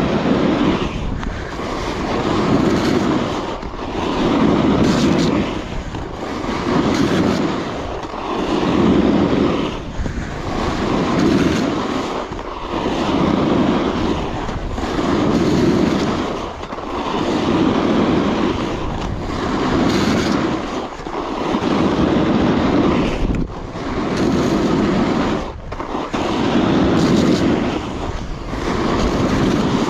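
Coiler Nirvana alpine snowboard carving turn after turn on groomed snow: the edge scrape swells and fades about every two seconds, with wind rushing over the microphone.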